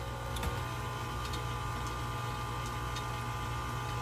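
KitchenAid stand mixer running steadily, its motor giving a constant whine while the beater turns a still-dry flour and yeast mixture, with a few faint ticks.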